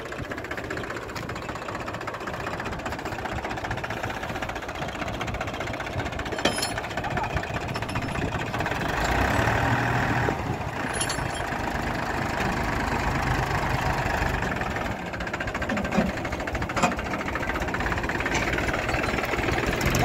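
Mahindra 265 DI tractor's three-cylinder diesel engine running under the load of a full trailer, getting louder about halfway through, with a few sharp clicks.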